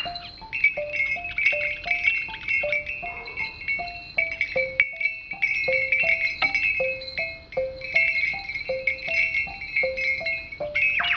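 Music: a repeating tune of short notes stepping up and down, about three a second, over a steady high ringing tone, with a quick falling glide near the end.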